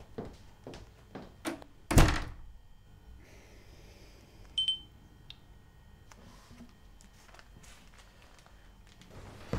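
A single heavy thunk about two seconds in, with a short ringing tail, then one brief high beep a little later over quiet room tone.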